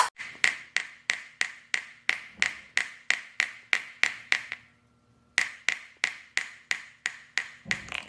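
A steady run of sharp taps or clicks, about three a second, breaking off for under a second a little past the middle before resuming.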